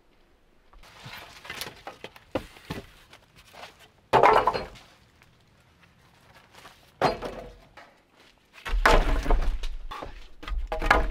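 Hollow bamboo poles knocking and clattering against each other and the wooden platform as they are handled. The knocks are scattered, with sharp ones about four and seven seconds in and a longer run of clattering near the end.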